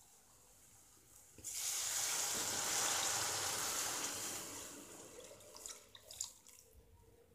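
Water poured into an aluminium kadai of sautéed vegetables, a steady splashing pour that starts about a second and a half in, lasts about three seconds and tapers off. A few faint clinks follow.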